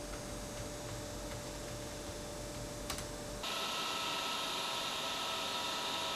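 Steady mechanical hum and hiss with one faint steady tone and a single click, cutting abruptly about three and a half seconds in to a louder, brighter hiss with several steady high tones.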